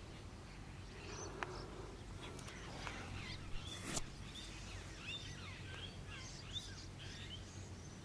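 Faint bird chirps and short twittering calls, thickest in the middle, with one sharp click about four seconds in.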